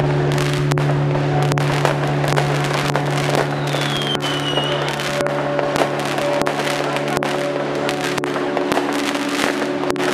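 Fireworks going off in quick succession: dense crackling and bangs, with a whistle that falls in pitch about halfway through.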